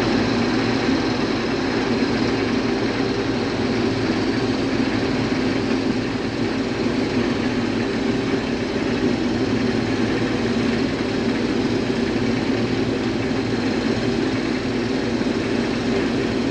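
Case IH combine harvester running steadily, a constant engine drone with no change in speed.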